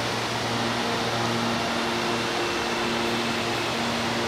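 Red CPTM electric train humming steadily: a constant machine drone with a few steady tones over a broad hiss, typical of its air conditioning and on-board electrical equipment.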